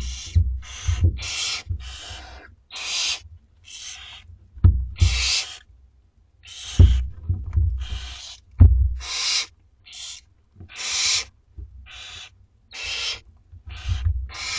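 Barn owl nestlings' hissing begging calls: harsh, rasping hisses repeated about once or twice a second, with a few low thumps among them.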